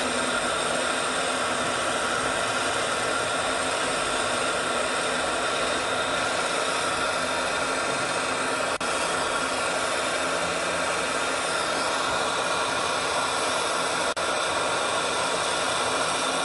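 Oxygen–gas lampworking torch burning with a steady, even hiss.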